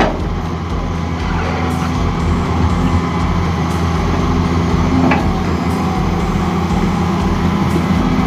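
Hydraulic excavator's diesel engine running steadily under working load, with a single short knock about five seconds in.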